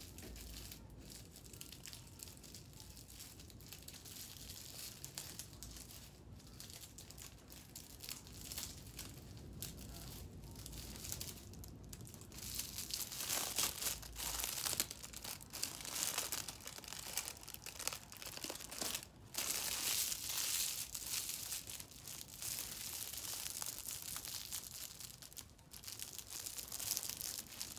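Crinkling and rustling of decorating materials being handled by hand. It gets louder and busier about halfway through.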